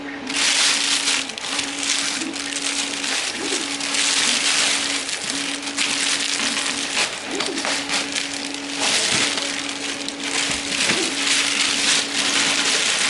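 Packaging rustling and crinkling continuously, loud and uneven, as the resin printer is unpacked from its box.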